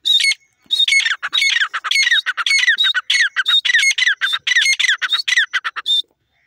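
Grey francolin calling: one short shrill note, then a loud, fast series of shrill calls, each sliding down in pitch.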